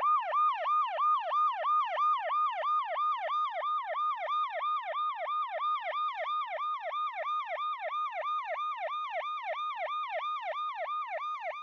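Electronic emergency-vehicle siren in a fast yelp, about three to four cycles a second; each cycle holds a high note and then drops in pitch. It fades slowly throughout.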